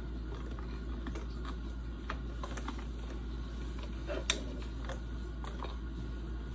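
Scattered light clicks and taps of M&M candies being handled and set into a pop-it mold, the sharpest about four seconds in, over a steady low hum.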